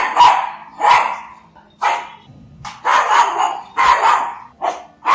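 Pug barking in a steady series, about one bark a second.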